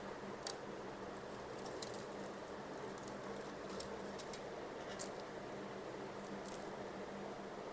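Lychee shells being cracked and peeled by hand: faint, scattered crackles and clicks over a steady low hum.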